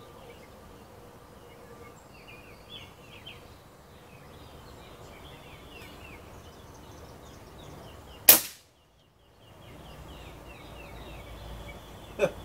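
Umarex Gauntlet .22 PCP air rifle firing a single shot, one sharp crack about eight seconds in. A short click follows near the end.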